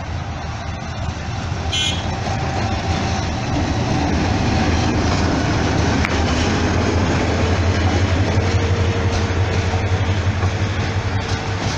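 Diesel-electric locomotive hauling a passenger train past at close range. Its engine drone grows louder over the first few seconds and then holds steady as the coaches roll by on the rails.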